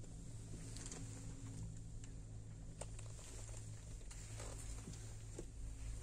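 Low steady hum inside a moving cable-car gondola, with a few faint clicks and creaks.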